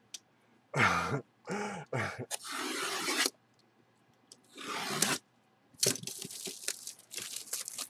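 Cardboard jersey box being handled and opened by gloved hands: a few quick scraping, tearing strokes in the first three seconds and another about five seconds in, then a run of crinkling crackles.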